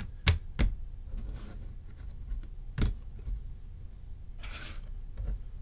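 Trading cards and a plastic card stand being handled on a tabletop: three sharp light clicks, two close together near the start and one about three seconds in, then a brief soft swish of cards sliding, over a low steady room hum.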